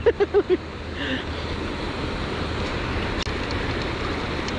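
Steady rush of wind and moving water with a low steady hum underneath. A few quick voiced syllables, like a short laugh, come right at the start.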